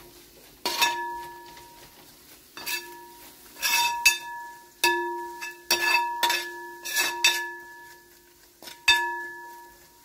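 A metal ladle knocking and scraping against a wide metal uruli while onions and spice powders are stirred and roasted. There are about ten irregular clanks, and each one leaves the pot ringing with a clear tone.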